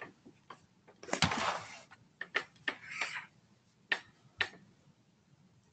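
Faint clicks and taps from someone working a computer on an open call line, about seven of them at irregular intervals. Two short soft hisses come about one and three seconds in.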